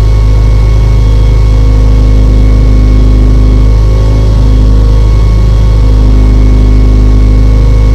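Renault Clio Cup race car's engine idling steadily with the car at a standstill, loud inside the stripped-out cabin.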